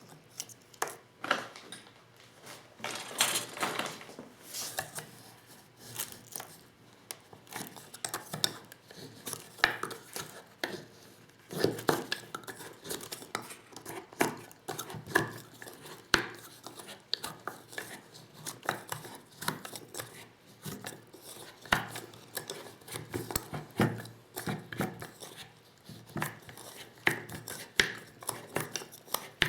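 Lee Loader hand-reloading tools and 12-gauge shotgun shells being handled: irregular clinks, taps and scrapes of small hard parts, several a second.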